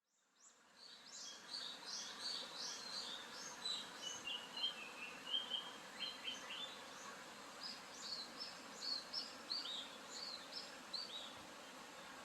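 Japanese paradise flycatcher singing: runs of short high chirping notes, a lower run of whistled notes in the middle, then more quick down-slurred notes, over a steady background hiss.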